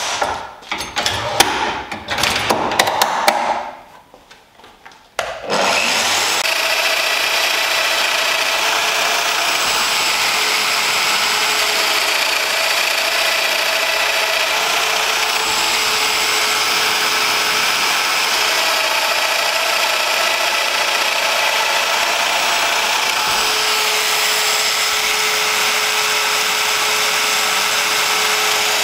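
Metal rail and ruler scraping and clicking as they are set on an oak board. About five seconds in, a Festool Domino DF 700 EQ joiner starts suddenly and runs at a steady level, with its dust-extraction hose attached.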